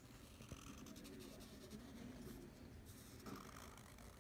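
Faint scratching of a Sharpie fine-point permanent marker's felt tip drawn across lined notebook paper in short strokes.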